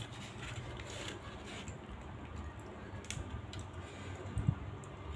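A metal spoon scraping and clicking as it scoops food in a styrofoam takeaway box, with a dull thump about four and a half seconds in.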